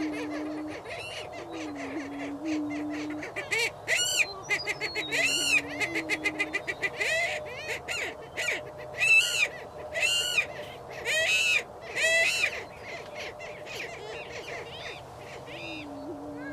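Greater prairie chickens displaying. Several low, hollow booming moans of about a second each, overlapped through the middle by loud, high, arching whoops and rapid cackling clucks.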